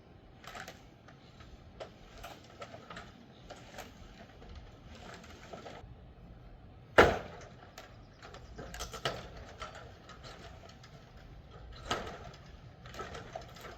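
Irregular knocking and clattering of wood being worked during demolition, with one sharp, loud crack of a hard hit about halfway through and a few lesser knocks after it.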